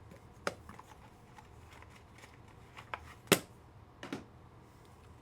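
Sports trading cards being handled on a tabletop: light handling noise with a few sharp taps, the loudest a little over three seconds in.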